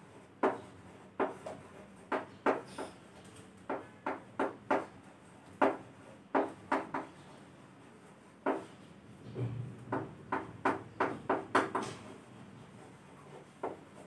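Chalk writing on a chalkboard: a string of short, irregular taps and scrapes as the letters are formed, with brief pauses between words.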